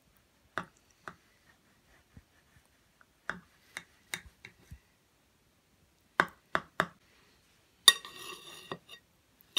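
Knife knocking and clinking against a ceramic plate while slicing a cake: a scattered run of light clicks, then a louder clink with a short ring about eight seconds in.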